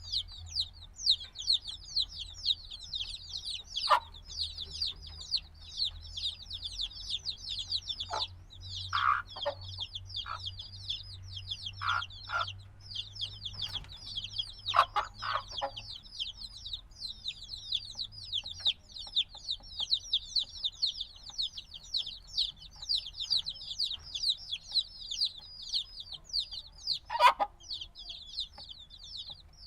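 A brood of newly hatched baby chicks peeping without pause: many fast, high chirps, each falling in pitch. Now and then comes a lower, louder short sound, the loudest one near the end.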